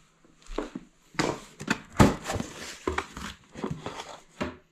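Cardboard boxes and their contents being handled: rustling and scraping of cardboard and paper with irregular knocks, the loudest knock about two seconds in.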